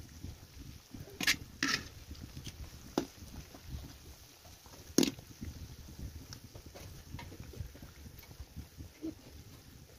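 Dough pieces frying in hot oil in an iron wok, with a steady crackle, and a metal skimmer or tongs clinking against the pan a few times; the loudest clink comes about five seconds in.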